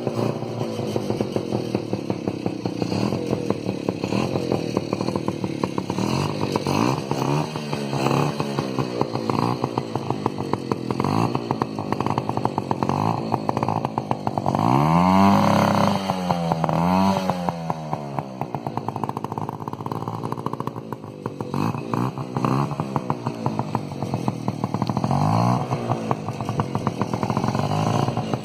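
Bajaj M80's single-cylinder engine running through an aftermarket silencer, revved repeatedly in short throttle blips that rise and fall back. It is revved hardest about halfway through.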